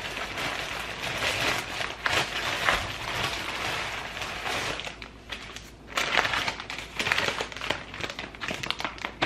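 Packaging crinkling and rustling unevenly as packs of butcher's meat skewers are handled, with a brief lull about five seconds in.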